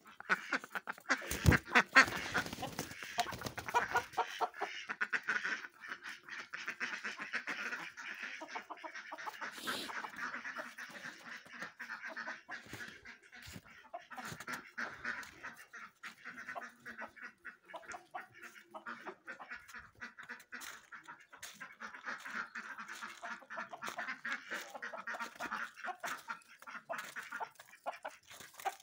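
Domestic ducks quacking in a dense, continuous run of rapid calls, loudest in the first few seconds.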